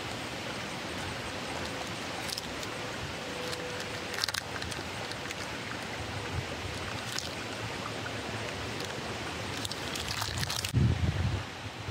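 Steady rush of flowing river water, with a few light clicks scattered through it and some low bumps near the end.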